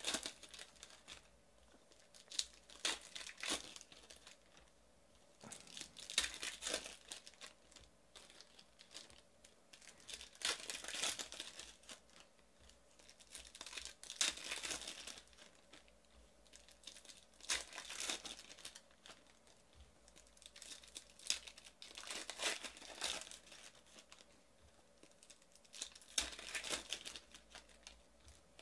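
Crinkling and tearing of plastic trading-card pack wrappers from 2018-19 Panini Prizm basketball retail packs being ripped open and handled. It comes in short bursts, one every three to four seconds.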